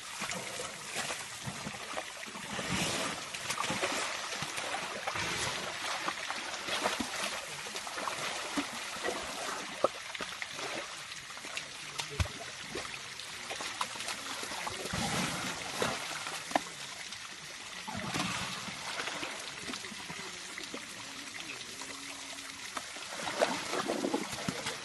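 Wet mud sloshing and splashing as elephants wallow and move in a mud bath, with irregular surges and a few sharp little clicks.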